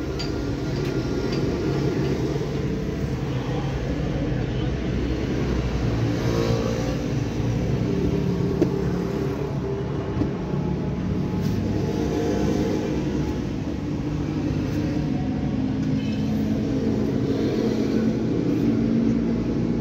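Suzuki Cultus's 1.0-litre three-cylinder engine running, heard from inside the cabin, its pitch rising and falling as it is revved a few times. There are two short sharp clicks near the middle.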